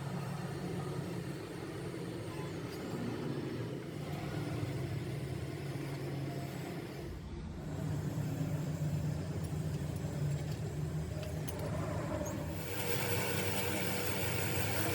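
A motor running steadily with a low hum. It changes abruptly about seven seconds in, and more hiss joins near the end.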